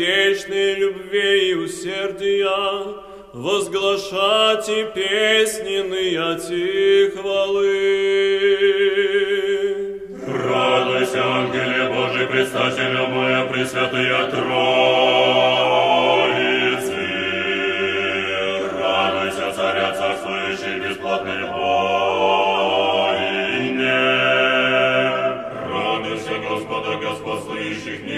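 Orthodox akathist chant: a single sung line carries two phrases, the second ending on a long held note. A full choir then sings together from about ten seconds in.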